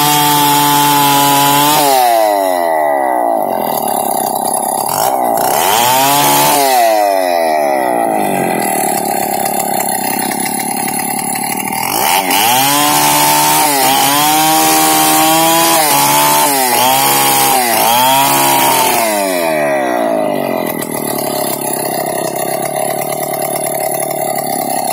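Chainsaw ripping a log lengthwise into planks, the engine at high revs. Its pitch sags and recovers again and again as the chain bites into the wood, in two spells of repeated dips.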